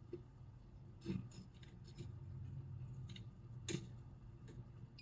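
Faint scattered clicks and scrapes of a circuit breaker finder's handheld receiver being slid down the panel and knocking against the plastic breaker handles, the sharpest click about three-quarters of the way through, over a low steady hum.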